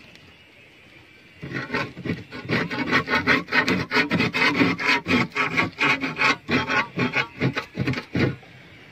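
A blade scraping again and again at the burnt fiberglass of a boat hull: quick, rough strokes about three a second, starting about a second and a half in and stopping just before the end.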